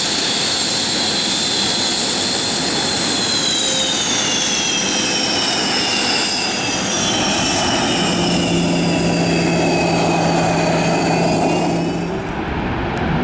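Sukhoi fighter jet's turbofan engines running loud, with a high whine that glides slowly down in pitch; the sound eases off slightly near the end.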